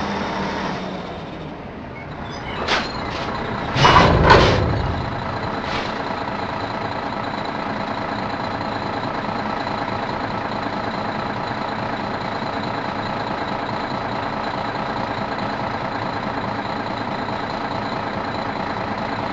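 Garbage truck's diesel engine running at a steady speed with a high steady whine while the body tips and dumps its load. About three to four seconds in come a few short sharp hisses or clunks, the loudest and longest lasting about half a second.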